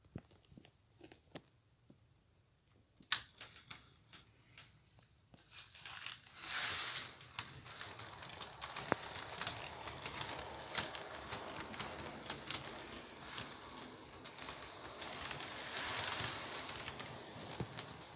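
HO scale model train running past: a Union Pacific model locomotive and intermodal cars on the track. After a few seconds of faint scattered clicks, a steady rumble of wheels and motor sets in about five seconds in, with frequent sharp clicks from the wheels on the rails.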